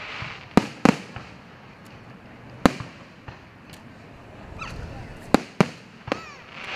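Aerial fireworks shells bursting overhead: a series of sharp bangs, two in the first second, one near three seconds and a quick cluster of three between five and six seconds.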